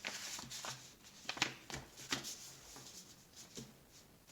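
A sheet of paper being handled and folded, giving a series of short crinkles and rustles.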